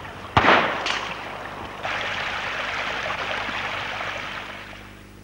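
A single shotgun blast, the loudest sound, followed about half a second later by a second, weaker crack. Then a steady hiss for a few seconds, fading out near the end.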